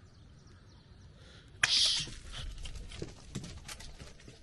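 A ball let go with a sharp knock about a second and a half in, followed by a run of light, irregular taps and scuffs.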